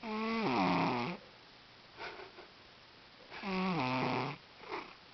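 Cat snoring loudly: two long snores about three seconds apart, each a buzzing tone that falls in pitch, with a short, softer snuffle after each.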